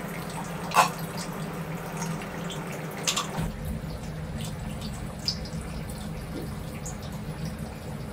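Kitchen sounds: a steady hiss over a low hum, with scattered small pops and clicks and two sharper knocks, about a second in and about three seconds in.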